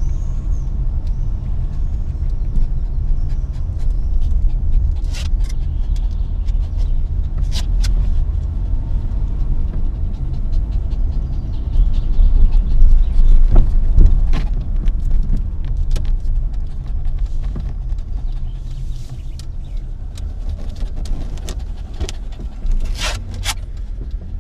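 Car being driven, heard inside the cabin: a steady low engine and road rumble that swells a little about halfway, with several sharp clicks scattered through.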